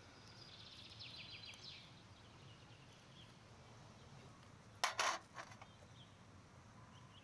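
A glass bowl clinks on a metal serving tray: two sharp clinks close together about five seconds in, then a lighter tap. Faint high bird chirps in the first two seconds over a quiet outdoor background.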